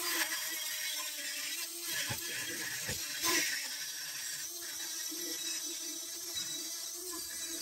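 Handheld electric die grinder running with a steady whine while its cone-shaped burr grinds out and widens the centre hole of a cast metal disc, with a rasping hiss from the cutting.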